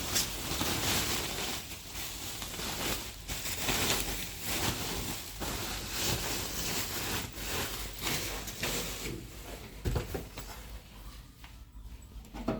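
Irregular rustling and scraping of packaging being handled, coming in uneven bursts, with a short knock about ten seconds in.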